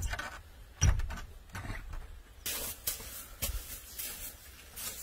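A wooden door knocks shut with a heavy thump about a second in. From the middle on, a handmade straw broom sweeps snow in short swishes, about two strokes a second.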